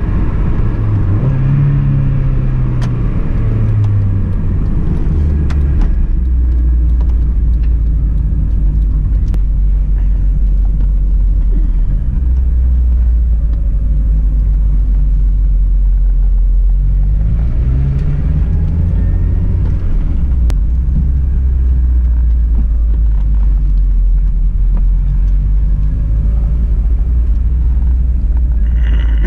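Car driving, heard from inside the cabin: a steady low engine and road rumble, with the engine note rising and falling twice, about a second in and again past the middle.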